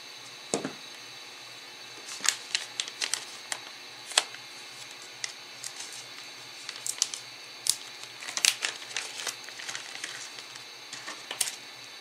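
Irregular light clicks and taps from handling a syringe of Arctic MX-4 thermal paste and the parts around it. There is a duller knock about half a second in, then quick runs of clicks.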